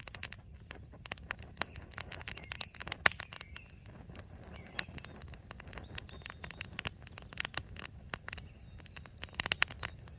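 Campfire crackling: irregular sharp snaps and pops over a low steady background, with a quick run of louder pops near the end.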